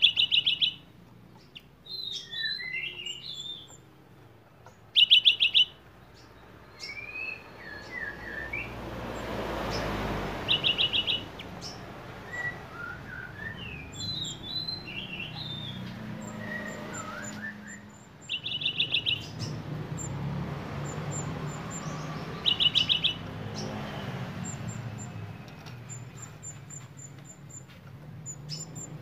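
Cinereous tit (gelatik batu) singing sharply: five short, rapid trills, the loudest sounds, come every few seconds, with varied high chirps and slurred whistles between them. The song is filled in with imitations of bar-winged prinia (ciblek) and velvet-fronted nuthatch (rambatan).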